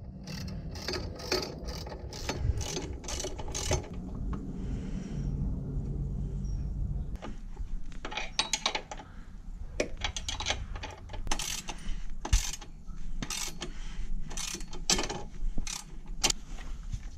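Ratchet spanner clicking in short irregular runs, mixed with sharp metal clicks, as the bolts of motorcycle pannier rails are tightened.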